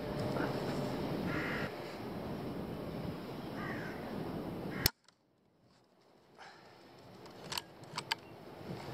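A single shot from a pre-charged pneumatic air rifle, a sharp crack about five seconds in, after which the sound drops away suddenly before the background returns. A few sharp clicks follow near the end. Two short bird calls come before the shot.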